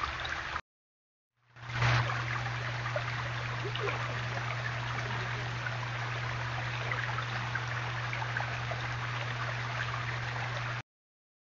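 Small stacked-stone garden waterfall splashing and trickling steadily, with a steady low hum underneath. The sound cuts out about half a second in, returns about a second and a half in, and cuts out again near the end.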